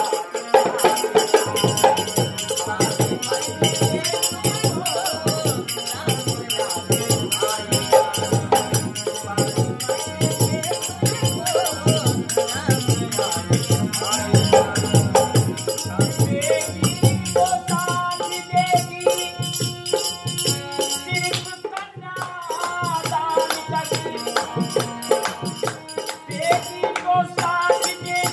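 Nirgun folk song sung by male voices to harmonium, with a dholak drum keeping a steady rhythm and small hand cymbals.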